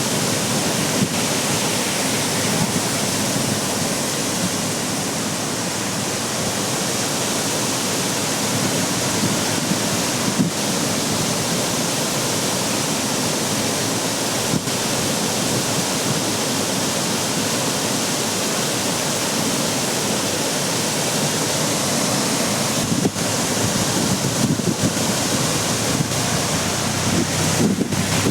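Heavy floodwater from a rain-swollen streamlet rushing and pouring across a road: a steady, loud, even roar of water.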